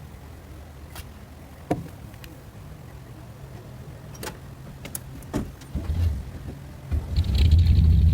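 Truck engine idling, with a few sharp knocks and clunks, then revving up loudly about seven seconds in.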